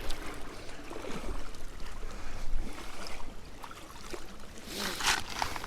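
Water lapping and moving around a kayak drifting on a river, with small knocks and a short rush of noise about five seconds in.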